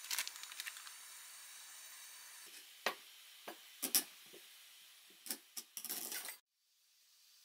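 Wet midi tomatoes lifted from a stainless mesh colander and set down on a wooden cutting board: a series of short, separate knocks and taps over a steady hiss. The hiss cuts off suddenly near the end.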